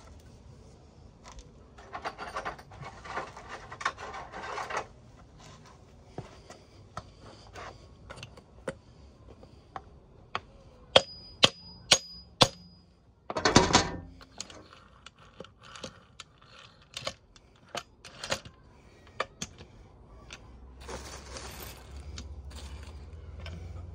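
Steel hammer knocking on a tool set on the end of a gearbox shaft in the crankcase half of a Suzuki RM85 engine: four sharp, ringing metal strikes about half a second apart, followed by a brief rattle. Lighter clinks of metal engine parts being handled come before and after.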